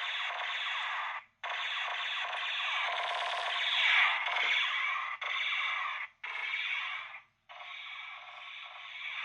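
A string of synthesized sci-fi UFO sound effects, five short electronic clips played one after another with brief silent gaps between them; the second and longest swells to its loudest about four seconds in.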